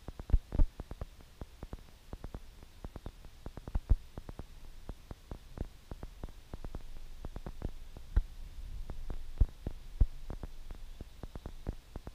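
Irregular low thumps and crackles over a faint low rumble, the loudest thumps about half a second in and again near 4, 8, 9.5 and 10 seconds.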